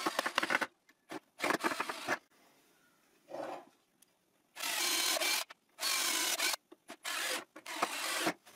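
Cordless drill running in several short bursts, boring holes and driving screws into the chair's wooden legs, with a pause of about two seconds in the middle.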